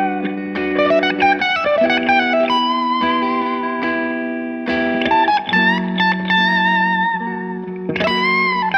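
Fender Stratocaster electric guitar played through a Morgan Dual 20 amplifier: a quick run of picked notes, then long held lead notes with vibrato and string bends over sustained lower notes.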